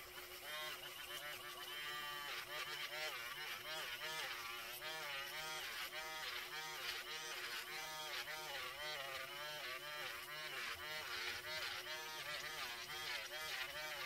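Budget electric nail drill with a sanding-band bit grinding down a fingernail: a steady motor whine under a buzzing rasp that wavers in pitch with each stroke of the bit, about one and a half strokes a second.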